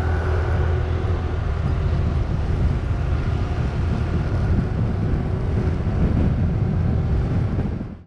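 A vehicle engine drones while driving along a road, with wind buffeting the microphone in a rough low rumble.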